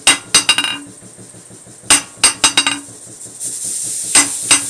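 A 28 oz ball peen hammer dropped three times onto the face of a 55 lb cast steel anvil, each time striking with a ringing clang and then bouncing three or four times in quickening succession, showing good rebound. About two-thirds through, an air compressor starts running with a steady hiss, which the owner thinks needs its belt tightened.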